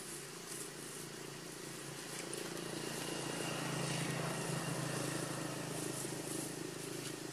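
A motor vehicle's engine drones steadily, swelling to its loudest about halfway through and easing slightly near the end, as it passes on the road.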